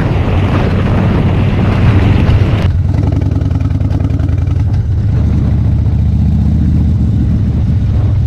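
Harley-Davidson Dyna Street Bob's V-twin engine under way, at first with heavy wind rush on the microphone at highway speed. About two and a half seconds in the wind noise cuts off suddenly, leaving the engine's low exhaust note at a gentle riding pace.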